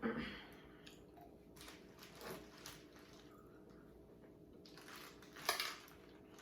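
Eating sounds of a seafood mukbang: a person chewing and handling food close to the microphone, with three short sudden noises, the loudest about five and a half seconds in.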